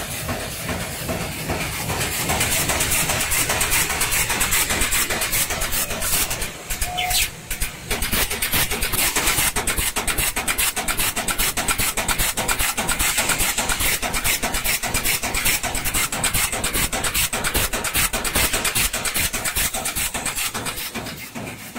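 Aerosol can top dome and cone production machinery running, with the tinplate sheet feeder and press making a fast, even clatter over a steady hiss. The level drops briefly about seven seconds in.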